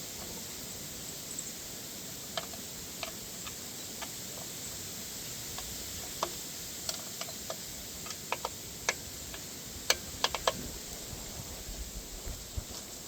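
Scattered light clicks and ticks over a steady hiss, a dozen or so, most of them from about six to eleven seconds in: small parts or tools being handled during work on a mini bike's brake.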